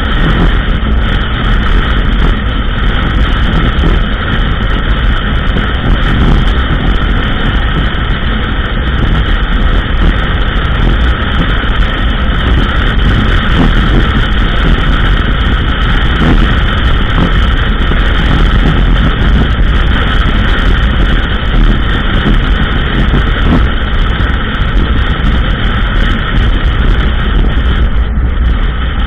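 ATV engine running steadily under way on a trail, a loud continuous drone with a low rumble.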